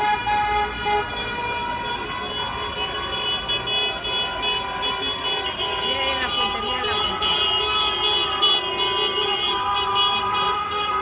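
Many car horns honking together in long, overlapping blasts, some cutting in and out, over street noise and voices: celebratory honking by passing drivers.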